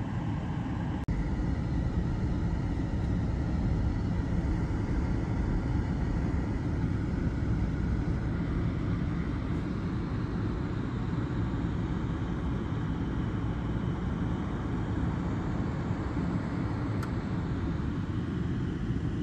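Steady low outdoor rumble of city background noise, like traffic and distant machinery, with no distinct impacts or hammering.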